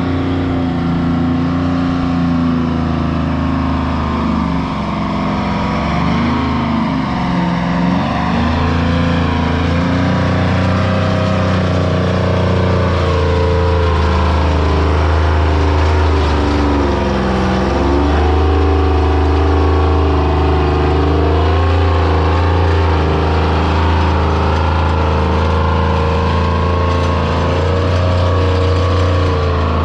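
Big Bertha, an old crop-spraying truck converted for pulling, running hard under heavy load on a pull. The engine note is loud and steady, sagging and recovering about seven seconds in and again near the middle.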